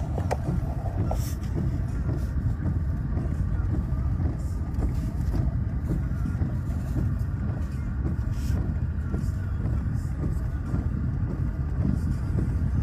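Car driving slowly, heard from inside the cabin: a steady low rumble of engine and tyres, with the windscreen wipers sweeping and scattered faint ticks over it.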